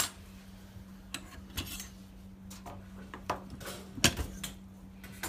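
Scattered metallic clicks and clinks of copper pipe and hand pipe benders being worked, about seven irregular knocks with the loudest about four seconds in, over a faint steady low hum.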